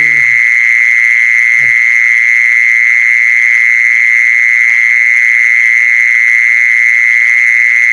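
A steady, loud, high-pitched trilling call that never breaks, with a brief low grunt about one and a half seconds in.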